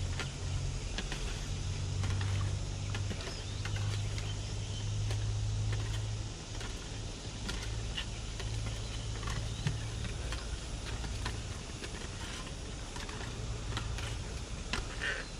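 Floorball stick blades tapping and pushing a hollow plastic floorball on concrete, making scattered light clicks over a steady low rumble.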